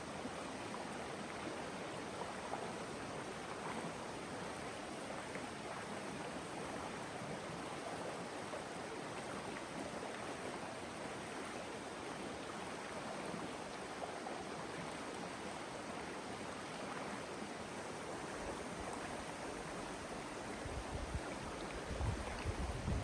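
River flowing steadily over rocks, a constant even rush. Near the end, wind buffets the microphone with low rumbling gusts.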